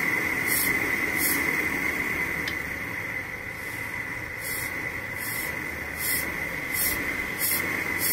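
Homemade gas blowtorch with a laminar-flow nozzle inside a steel pipe, burning with a steady hiss and a high whistle. Rhythmic hissing pulses about every two-thirds of a second come from the hand air pump being worked, and they pause for a couple of seconds midway.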